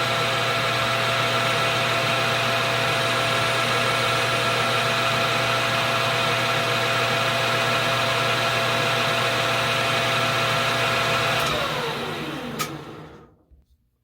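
Metal lathe running steadily while turning a small spacer pin down to a shoulder. Near the end it is switched off and the motor winds down with falling pitch, with a single sharp click as it slows.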